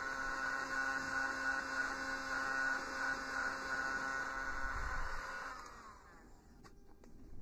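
Wagner heat gun running, its fan motor giving a steady hum with a whine. About five and a half seconds in it is switched off and winds down, leaving a few faint taps.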